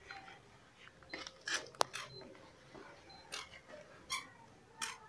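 Quiet, scattered clicks and rustles of a keypad mobile phone being handled, with one sharp click a little under two seconds in.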